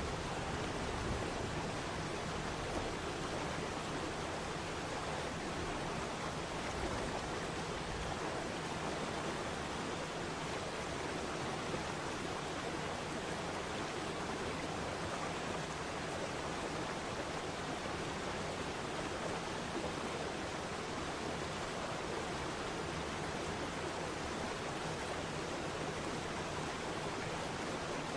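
Waterfall: falling water rushing in one steady, even wash of noise that does not change.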